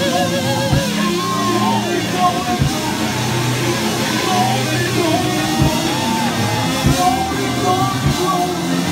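Live gospel music from a church band: guitar and a drum thump about every one and a half seconds under wavering sung lines.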